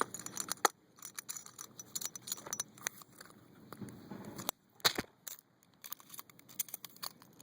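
Fishing and camping gear being handled close to the microphone: scattered small clicks, rattles and rustles, with one sharper click about five seconds in.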